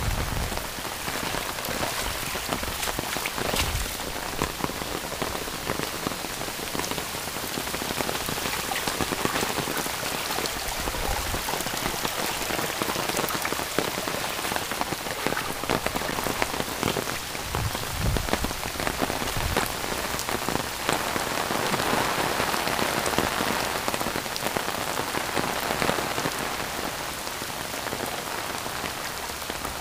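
Heavy tropical-storm rain falling steadily: a dense, even hiss with the close patter of many drops, broken by a few brief low rumbles.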